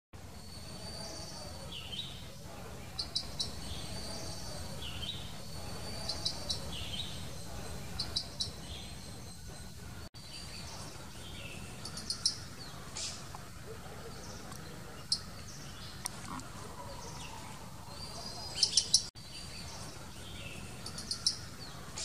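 Blue-capped rock thrush calling: short, sharp high notes in quick clusters, repeated every two seconds or so, with the loudest clusters near the end.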